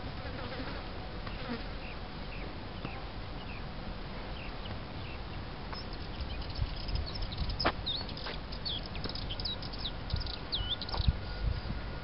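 Insects buzzing around a flowering tree over a steady low rumble. Many quick high chirps join in from about six seconds in.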